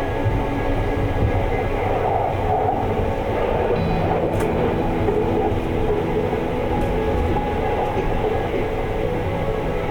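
Sunrise Izumo/Seto sleeper train, a 285 series electric train, running at speed: a steady rumble of wheels on the rails.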